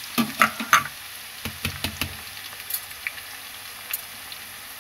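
Chopped onions sizzling in hot oil in a kadhai, just added, with a steady frying hiss. A few sharp knocks and pops stand out in the first two seconds.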